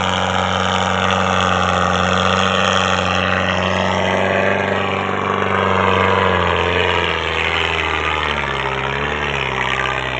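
Belarus 510 tractor's diesel engine working hard, pulling a fully loaded sugarcane trolley. Its steady note drops in pitch about six seconds in and wavers as the engine lugs under the load.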